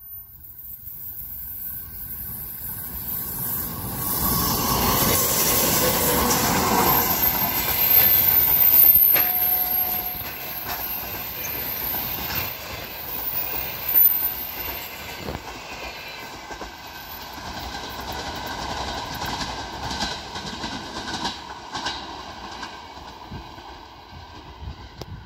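A 2TE116 twin-section diesel locomotive hauling a passenger train past. The engines and wheel noise grow louder as it approaches, peaking about eight seconds in. The passenger coaches then roll by with clickety-clack knocks over the rail joints, fading as the train draws away.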